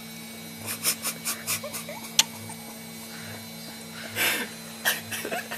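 A baby's short breathy sniffs and squeaks as it reacts to the sour lemon: a quick run of them about a second in, a sharp click, then two louder gasping breaths near the end, over a faint steady hum.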